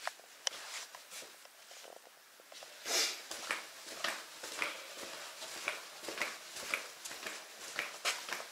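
Footsteps in a small room, falling about two a second from about three seconds in.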